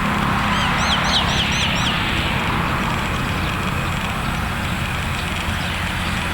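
Roadside ambience: a bird gives a quick run of about six high, hooked chirps in the first two seconds, over the steady rumble and road noise of passing vehicle traffic.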